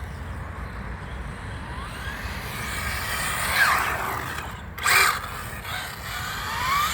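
Brushless electric motor of a 1:10 Kyosho Fazer MK2 RC car whining, rising and falling in pitch as the car speeds up and slows several times. A short loud hiss about five seconds in.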